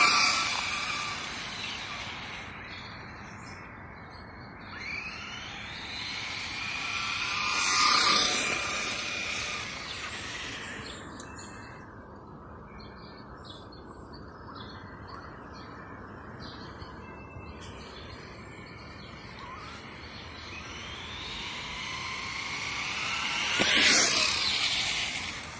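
Traxxas Stampede RC monster truck speeding past three times, its motor and gears whining, rising in pitch as it approaches and falling as it goes away. The passes come at the start, about eight seconds in, and near the end, with the last one the loudest.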